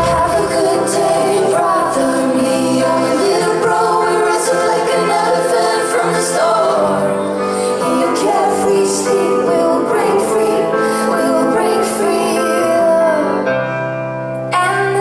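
Live pop band playing, with a woman singing over sustained keyboard and string tones. The music thins out briefly about a second before the end.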